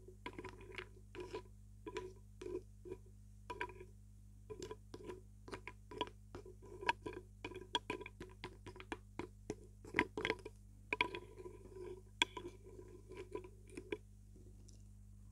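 A wooden spoon stirring and scooping milk-soaked chunks in a bowl: irregular small knocks and wet clicks, a few a second, with a few louder ones near the middle, over a steady low hum.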